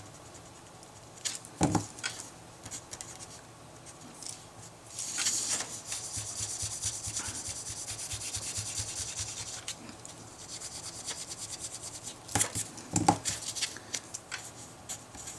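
Rubbing and scratching on paper at a desk, heaviest in a steady stretch from about five to ten seconds in, with a few light knocks on the desk near the start and again about twelve seconds in.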